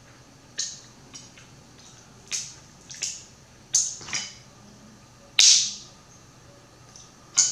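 Close-miked wet eating noises from snow crab legs being picked apart and eaten: a run of about seven sharp smacks and snaps, the loudest about five and a half seconds in.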